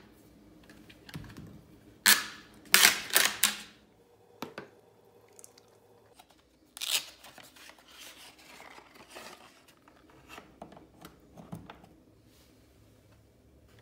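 Plastic lid of a five-gallon paint bucket being pried and torn open with a painter's hand tool, with a run of loud cracking, tearing snaps about two to three and a half seconds in. After that comes a softer wet pour of paint from the bucket into a grid-fitted paint pail, and near the end a few small clicks.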